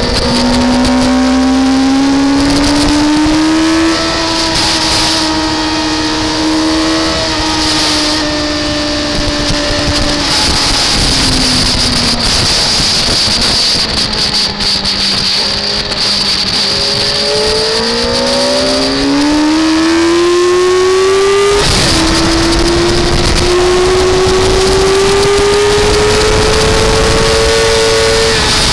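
Track-day vehicle's engine under power on a race circuit, over a steady rush of wind and road noise. The revs climb and hold, ease off around ten to thirteen seconds in, and climb again. About 21 seconds in the note drops sharply at an upshift, then pulls up once more.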